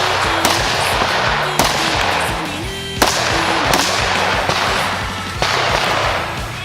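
Five irregularly spaced shots from a .223 AR-15 rifle, each sharp crack trailing off over about a second, over background music.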